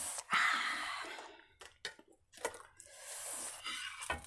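Metal spatula scraping and tapping on a hot flat dosa pan while working under a cooking egg dosa. There is a sharp knock and a scrape of about a second near the start, a few light taps, and a softer scrape later on.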